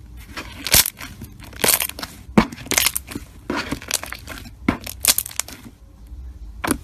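Hands squeezing and pressing thick slime: a string of crackly, squishy pops, one every half second to a second.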